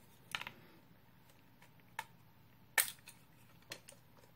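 Hard plastic parts of a Transformers Earthrise Astrotrain's tinderbox accessory clicking and snapping as they are pried off: a handful of short, sharp clicks, the loudest a snap nearly three seconds in.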